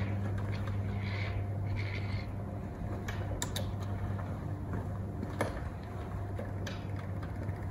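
Home-built electric go-kart creeping slowly over a concrete driveway: a steady low motor hum with a few scattered clicks and knocks.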